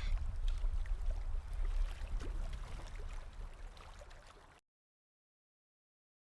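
Wind buffeting the microphone: a low, uneven rumble with hiss and a few small clicks, fading out about four and a half seconds in, after which there is silence.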